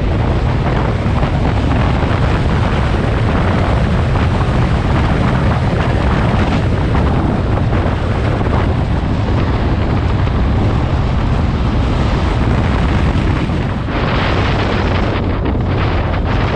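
Heavy wind buffeting the microphone of a camera on a moving motorcycle, a steady rushing roar with the bike's engine and road noise underneath. It dips briefly and turns choppier near the end.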